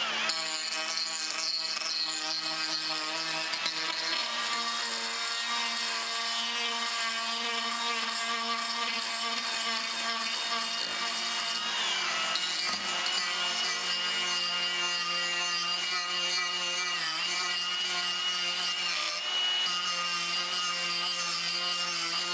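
Cordless DeWalt 20V die grinder running at high speed, a cylindrical burr grinding the outside of a dry apple-wood spoon bowl: a steady high whine over the grinding of the wood. About twelve seconds in the pitch drops sharply, then picks back up.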